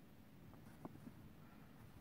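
Near silence: room tone, with one faint tick a little under a second in.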